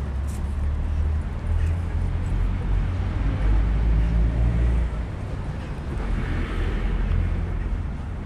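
Low engine rumble of motor traffic, swelling and easing, with a hiss of a vehicle passing about six to seven seconds in.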